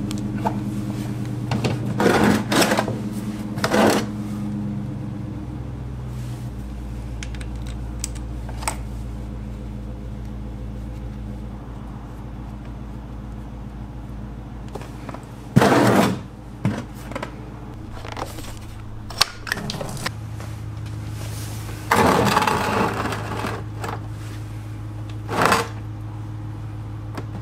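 Scattered metal clicks and clatters of hand work on the coolant drain bolt of a Yamaha Kodiak 400 ATV engine, over a steady low hum.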